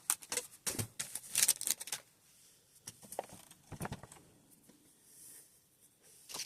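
Handling of toy packaging and plastic playset parts: a run of light clicks and rustles, busiest in the first two seconds, then sparser taps.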